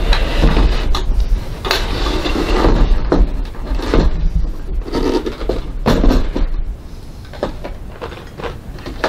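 Hard plastic parts of a vintage Janome sewing machine being handled: the clip-on flatbed extension tray is pulled off around the free arm, scraping, knocking and rattling. The handling is loudest for the first six seconds or so, then eases to light clicks and taps.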